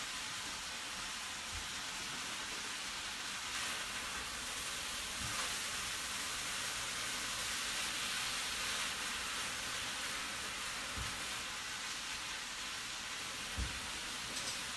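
Beef browning in a hot skillet, a steady sizzle, with a few soft knocks.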